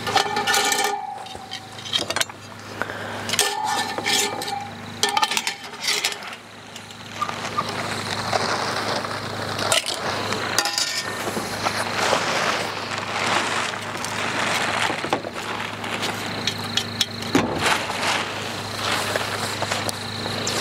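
Metal tongs clinking against a cast-iron Dutch oven and pot. There are several sharp clinks in the first few seconds, two of them with a short metallic ring.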